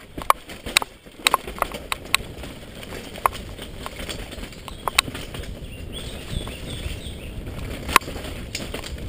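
Enduro mountain bike descending a dirt forest single track: a steady low rumble from the tyres and trail, broken by sharp clacks and rattles of the bike over bumps, a quick cluster in the first two seconds and a loud single clack near the end.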